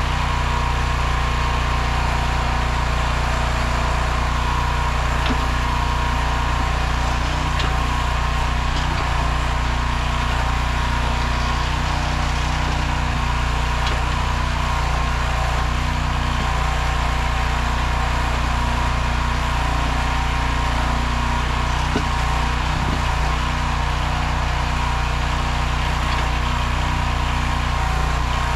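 Small 15 hp engine of a towable backhoe running steadily at a constant speed, with a strong low hum that holds even throughout.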